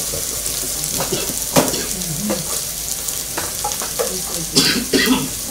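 Onions and pepper sizzling in hot oil in a pan while being stirred with a spoon. A steady hiss runs throughout, broken by sharp scrapes and knocks of the spoon against the pan, one about a second and a half in and several close together near the end.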